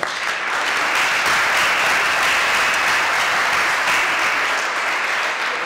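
An audience applauding: steady clapping that breaks out as the speech ends and begins to thin near the end.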